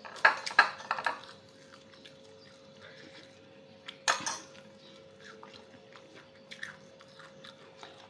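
Eating rice by hand from a ceramic plate: light clicks and scrapes as fingers mix rice and vegetables against the plate, with chewing and mouth sounds. A cluster of louder clinks comes in the first second and another about four seconds in.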